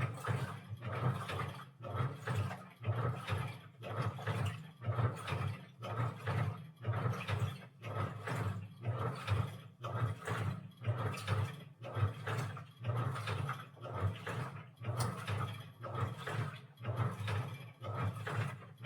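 Washing machine drum churning in its wash cycle, a rhythmic swish of water and laundry about once a second.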